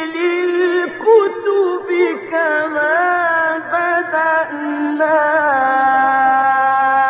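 A solo male reciter chanting the Quran in the melodic mujawwad style, drawing out long held notes with wavering ornaments and slow shifts in pitch.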